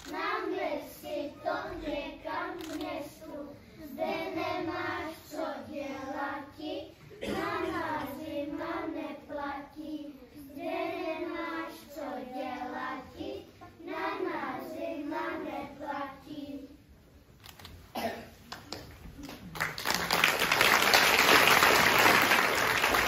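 A group of young children singing a song together in unison; after a short pause near the end, the audience breaks into applause.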